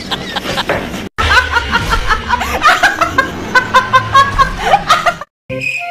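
A woman laughing hard and repeatedly, after about a second of a different clip's voice and laughter; a cut breaks the sound just after a second in, and the laughter stops abruptly near the end.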